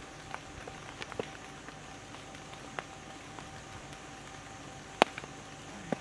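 Forest background with a faint steady hum and a scattering of short sharp ticks, the loudest a single click about five seconds in.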